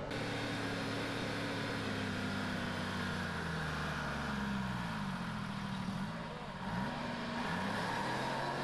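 Diesel engine of a County four-wheel-drive tractor pulling a plough, a steady working note that dips and rises in pitch a few times past the middle.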